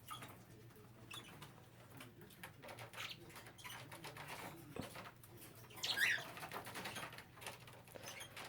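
Small pet parakeets scampering about their cages: a scatter of light scratches, taps and a little wing flapping, with a short chirp about six seconds in.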